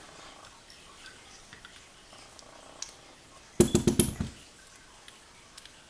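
Small metal lock parts clicking faintly, then a quick clattering run of about eight sharp clicks a little past the middle, as driver pins and springs are worked out of a pin-tumbler lock's chambers.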